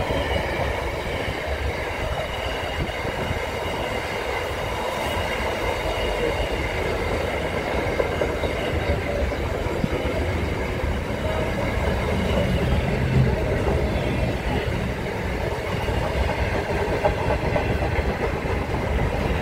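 Freight train of container and flat wagons rolling past: a steady rumble of steel wheels running over the rails, with a faint high ringing tone in the first half.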